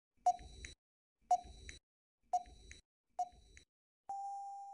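Quiz countdown-timer sound effect: four short beeps about a second apart count down, then one longer steady beep near the end signals that time is up.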